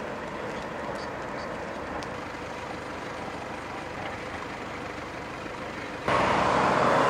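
Steady motor-vehicle and road-traffic noise, with a faint low engine hum, jumping suddenly louder about six seconds in.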